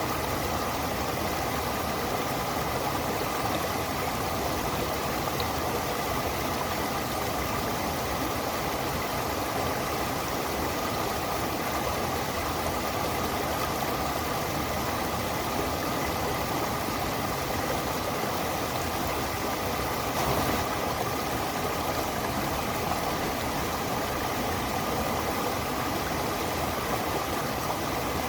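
Stream water flowing steadily: a continuous, even rush.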